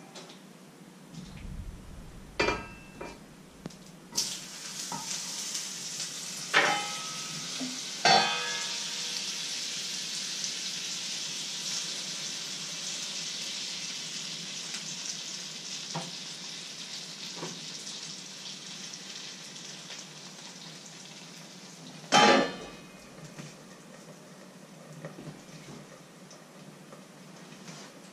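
Thin pancake batter sizzling in a hot frying pan: the sizzle starts suddenly about four seconds in as the batter goes in, then slowly dies down. Several sharp metal clanks of the pan and utensils, the loudest near the start and once more about two thirds of the way through.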